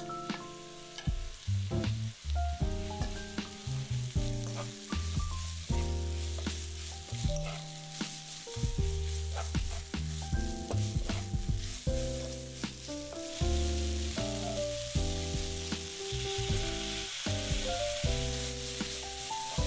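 Seaweed stems, onion and carrot sizzling in hot oil in a frying pan as they are stirred, under background music. The sizzle grows louder about two-thirds of the way in.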